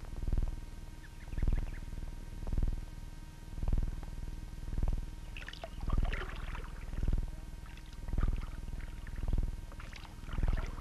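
Oars of a rowboat dipping and pulling through water in a steady rhythm, about one stroke a second, with faint high chirps in the second half.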